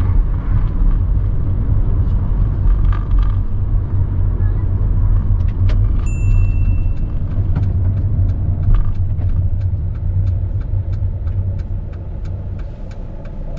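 Car engine and road rumble heard inside a moving car's cabin. From about halfway, a regular ticking sets in at roughly two ticks a second, typical of the turn indicator, with a short high beep as it starts.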